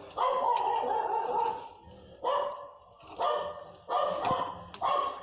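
A voice calling out five times: one long call, then four short ones.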